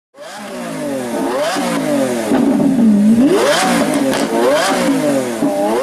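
Nissan GT-R's twin-turbo V6 through a titanium exhaust, its pitch climbing and falling several times as it revs up and eases off, with a steady low drone about halfway through.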